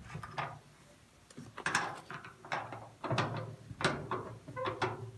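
Scattered metal clicks and rattles as a Phillips bit is handled and fitted into a drill, with no motor running.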